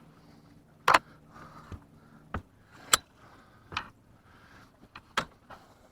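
About six sharp, irregular clicks and knocks, loudest about a second in and about three seconds in, from fishing gear being handled in a small boat, over a faint low hum.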